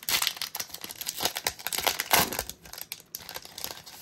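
Pokémon booster pack's foil wrapper crinkling and tearing as it is opened, loudest about two seconds in and dying down near the end.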